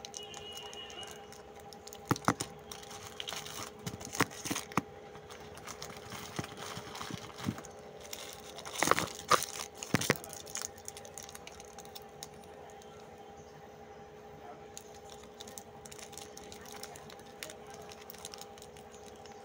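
Plastic wrappers of Mars chocolate bars crinkling and crackling as they are handled and pulled from their box, in scattered bursts that are loudest about nine seconds in. A steady hum runs underneath.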